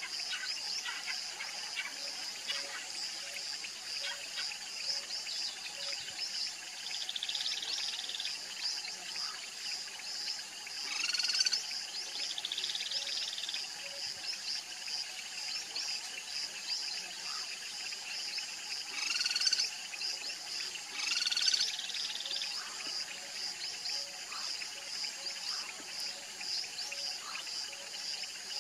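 Outdoor ambience of a steady high insect drone with small birds chirping. Two short buzzy insect trills come through, and three louder bird calls stand out: one about eleven seconds in and two close together near twenty seconds.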